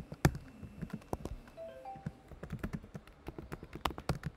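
Typing on a computer keyboard: quick, irregular runs of keystroke clicks.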